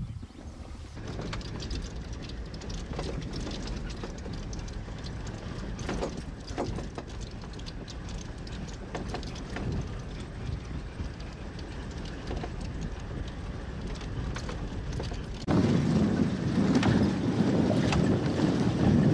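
Safari vehicle driving over a rough track: a steady low rumble with frequent small rattles and knocks. It gets markedly louder about fifteen seconds in.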